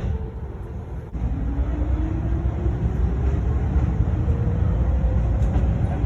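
Train running with a steady low rumble; from about a second in, a motor whine rises slowly in pitch as the train picks up speed.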